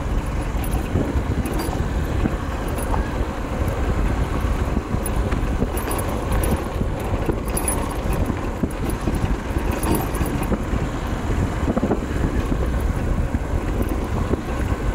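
Motorcycle engine running on the move, with wind buffeting the microphone.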